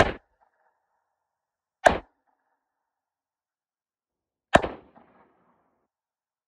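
Snub-nose .38 Special revolver fired three times, at the start, about two seconds later and nearly three seconds after that, each shot a sharp crack that dies away quickly.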